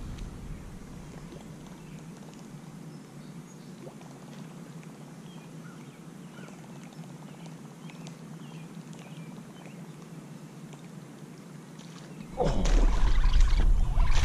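Faint sound of a topwater plopper lure being reeled in across calm lake water, with small scattered splashes. About twelve seconds in, a sudden, much louder rush of noise and splashing starts and continues.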